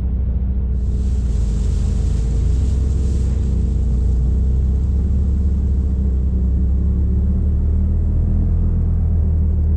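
Side-by-side UTV engine running steadily as the machine drives along. From about one to three seconds in, a hiss of water spray joins it as the wheels splash through a shallow water crossing.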